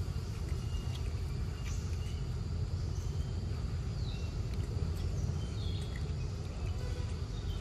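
Forest ambience: scattered short bird chirps, a few sliding down in pitch, over a steady low rumble.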